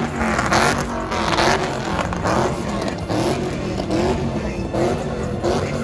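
A car sliding in circles on the pad, its engine revving up and down over and over about once a second, with tyre noise swelling on each rev.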